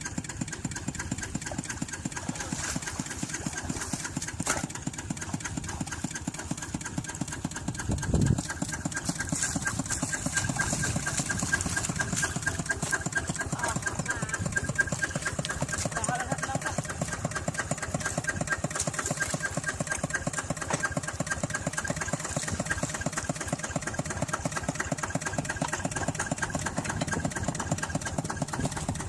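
Small engine running steadily with an even, rapid firing rhythm and a faint steady whine.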